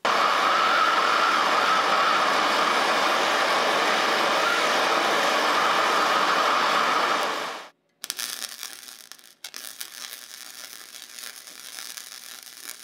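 A gas torch flame hissing steadily while it heats the end of a steel bar, cut off abruptly after about seven and a half seconds. Then a quieter welding arc crackles and sputters, with one brief pause.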